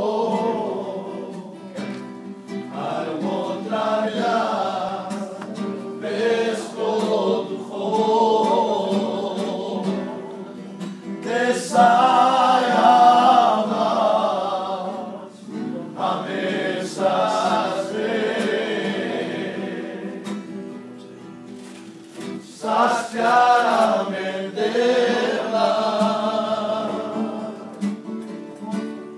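A group of voices singing a worship song together, line after line with short breaks between phrases.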